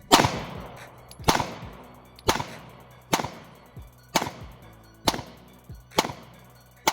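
Glock 43X 9mm pistol fired in steady slow fire: eight shots about a second apart, each with a ringing echo that dies away.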